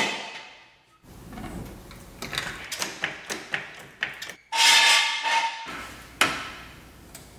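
Hydraulic floor jack worked under a car to raise its front: metal clanks and clicks from the jack and its long pumping handle, with a short, louder metallic rattle about halfway through and a sharp knock near the end.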